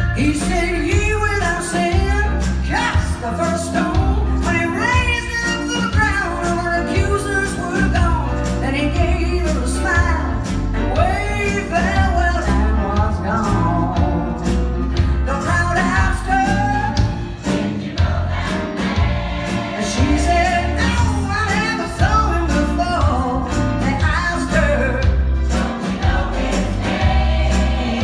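Choir and lead vocalist singing a song over band accompaniment with a heavy bass line.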